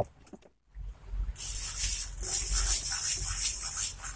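Steady rushing hiss of water, strongest in the high frequencies over a low rumble, starting about a second in after a brief dropout.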